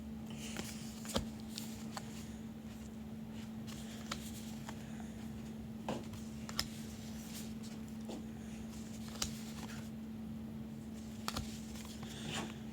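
Baseball trading cards being handled and set down: sparse light clicks and taps a second or a few apart, over a steady low hum.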